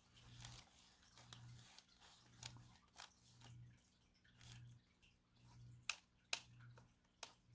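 Faint, rhythmic swish of a paintbrush spreading acrylic paint over canvas, about one stroke a second, with a few sharp taps in the last two seconds.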